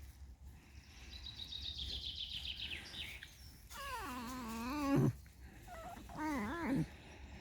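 Fox squeaking: a rapid, high-pitched chattering trill that falls slightly in pitch, then two wavering whining squeals. The first squeal is the loudest, and the second is shorter.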